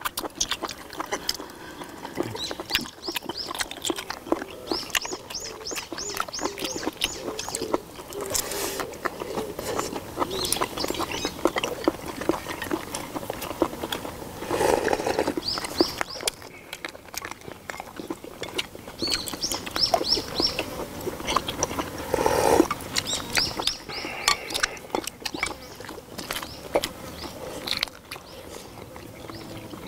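Mukbang eating sounds: close chewing, smacking and sucking of shellfish, octopus and other seafood, with a loud slurp of spicy broth about 15 s in and another about 22 s in.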